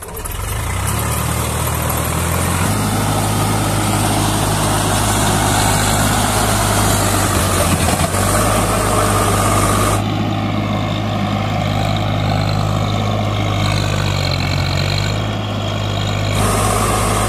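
4x4 tractor's diesel engine running hard under load as it churns through deep mud, its wheels spinning. There is a steady drone, and the sound changes abruptly twice, at about ten seconds and near the end.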